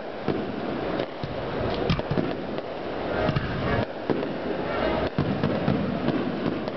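Fireworks display: aerial shells and low-level fireworks launching and bursting in quick succession, a continuous barrage of bangs.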